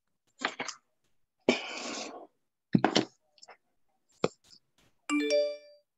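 Scattered clicks, taps and rustling from a device being handled close to an open call microphone. Near the end comes a brief chime-like sound of several tones at once.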